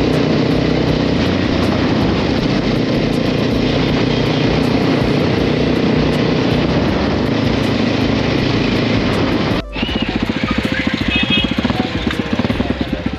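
Motorcycle engine running steadily while riding, with road and wind noise. About ten seconds in the sound cuts, and a Royal Enfield's single-cylinder engine idles with an even, rapid thumping beat.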